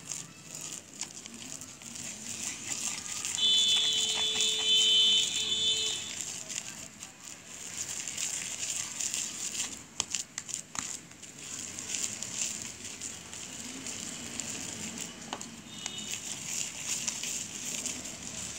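Hands kneading fluffy slime made of white glue, shaving foam and borax in a plastic bowl: a steady, soft noise with scattered small clicks. A few seconds in, a steady high tone sounds for about two and a half seconds and is the loudest thing; a brief, shorter tone comes near the end.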